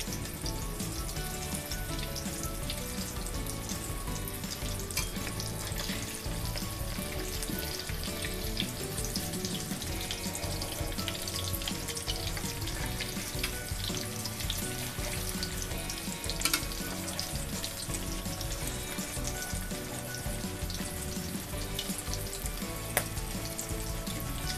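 Egg omelette with canned fish and chopped vegetables frying in hot vegetable oil in a wok: a steady crackling sizzle as the first side browns, with a few louder sharp clicks.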